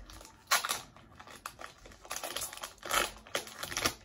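Foil wrapper of a Pokémon trading card booster pack crinkling as it is handled and opened, in a run of short rustles.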